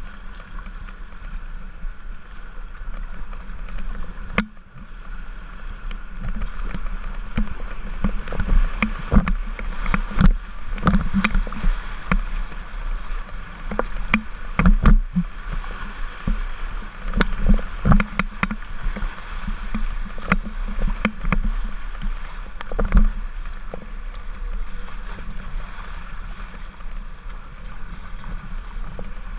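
Kayak paddled down a shallow river rapid: river water rushing and splashing around the hull, with repeated sharp splashes of paddle strokes over a steady low rumble. The strokes come thickest through the middle and thin out near the end.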